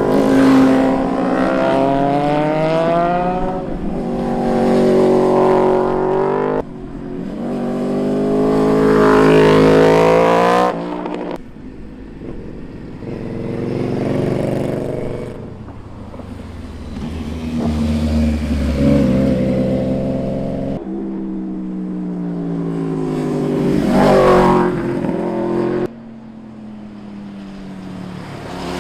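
Sport motorcycles riding past one after another, their engines revving hard, the pitch climbing as they accelerate and then dropping. Several bikes go by in turn, each pass loud, with shorter quieter gaps between them.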